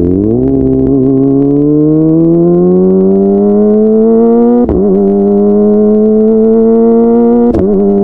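Kawasaki ZX-25R's inline four-cylinder engine through a DX Generation Pro Race full-system exhaust, accelerating with its pitch climbing steadily. About halfway through it breaks off sharply for an upshift and comes back a little lower, then holds a steady high note, with one more brief break near the end.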